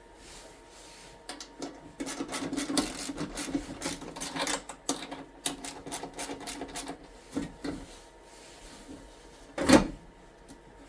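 Hand work on a snowblower's underside while the belly pan comes off: a dense run of irregular rattling clicks and scrapes of tools and metal, then scattered knocks and one loud clunk near the end.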